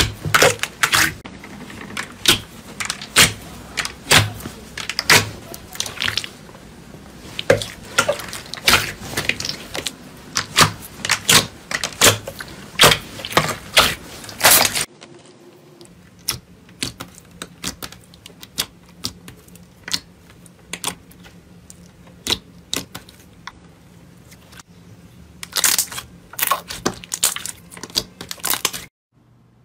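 Hands squeezing and pressing glossy clear slime, making rapid sticky pops and clicks as air is pressed out. About halfway through this gives way to quieter, sparser crackles over a faint low hum, with a flurry of pops again near the end.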